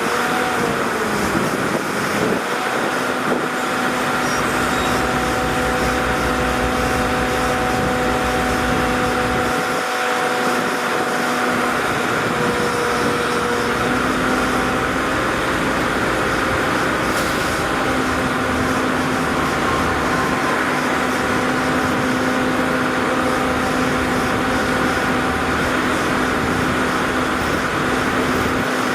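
Heavy machinery engine running steadily, with a constant drone over a loud even noise; the pitch shifts slightly a few times.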